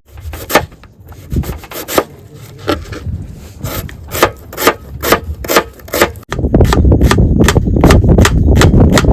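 A knife chopping onions and tomatoes on a cutting board, in sharp irregular strokes about two a second. About six seconds in, a loud low rush of strong wind comes in under the chopping.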